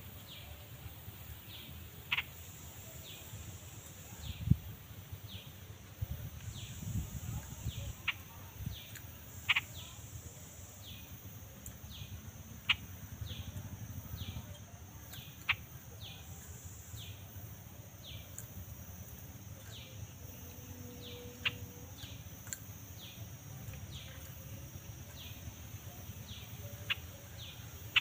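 Outdoor rural ambience: a steady high insect drone, with a short, high, falling chirp repeated evenly about every three-quarters of a second and a few sharper clicks scattered through.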